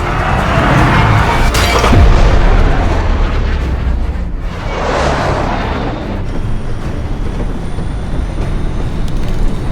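F-14 Tomcat jet engine noise swelling twice as the jet takes off and passes, with a sharp bang about two seconds in, under film score music.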